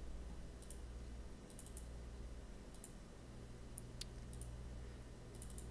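Faint computer mouse clicks, a few scattered through, one sharper about four seconds in, over a low steady hum.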